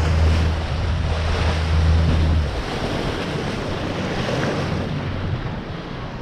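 Boat engine running with a steady low drone that drops away about two and a half seconds in, leaving wind across the microphone and water noise.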